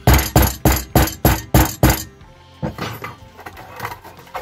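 Hammer blows in a quick series, about three a second, stopping about two seconds in, then a few lighter knocks: tapping on a Jawa 20 moped engine crankcase to split its halves.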